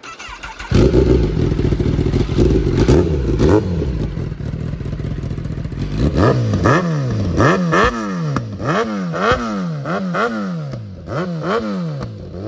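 Kawasaki ZX-10R's inline-four, breathing through an SC-Project titanium full exhaust with the dB killer fitted, starting up about a second in and running, really loud. From about halfway it is revved in quick repeated throttle blips, each rising and falling, about one and a half a second.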